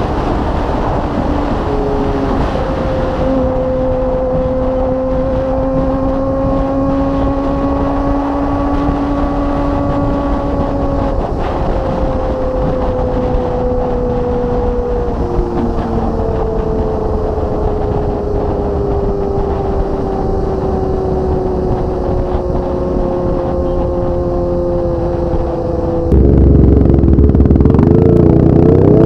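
Kawasaki ZX25R's 250 cc inline-four running through an aftermarket Magna exhaust while riding, its pitch holding fairly steady and drifting slowly up and down. Near the end it gets suddenly louder and the pitch wavers, then climbs as the throttle opens.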